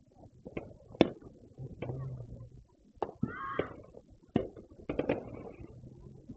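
Distant fireworks going off: a scatter of sharp pops and bangs at irregular intervals, the loudest about a second in and a quick cluster around five seconds in, with a brief high pitched chirp or whistle a little after three seconds.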